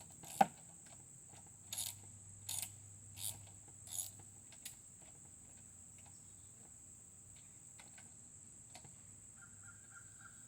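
Hand tools working on a lawn mower being taken apart: one sharp metallic click, then four short clicking strokes about three-quarters of a second apart, then only small faint clicks.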